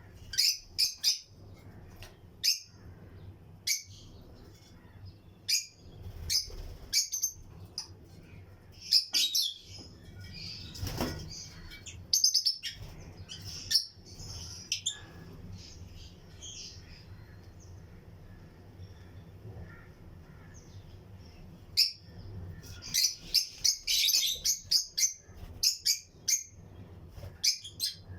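A colony of lovebirds chirping: short, sharp, high calls in scattered clusters, with a short rustle near the middle, a quieter stretch after it, and a dense burst of chirping near the end.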